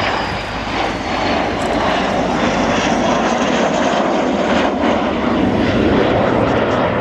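English Electric Canberra PR9's twin Rolls-Royce Avon jet engines in a steady roar as the aircraft flies past low and banks away, growing a little louder through the pass, with a faint falling whine near the start.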